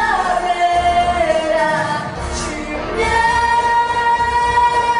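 Female voices singing a pop song into microphones over an amplified backing track with a steady beat; a sung line slides down near the start, and a long note is held from about three seconds in.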